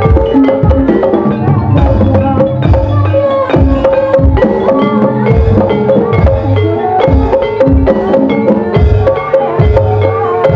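Javanese gamelan music accompanying an ebeg dance: struck metal keyed instruments and gongs play a repeating melody over a quick, steady run of drum strokes.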